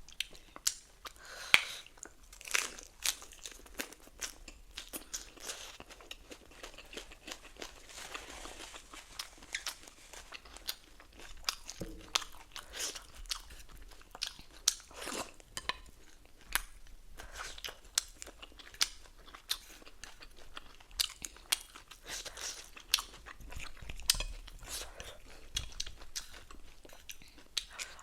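A person chewing food close to the microphone, with frequent crisp crunches and sharp, irregular mouth clicks.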